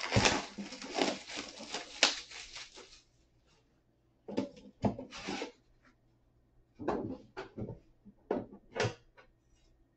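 Plastic wrapping being torn and crinkled off a sealed card box, a dense crackle for about the first three seconds. Then come scattered rustles, scrapes and light knocks as the box lid is worked loose and lifted.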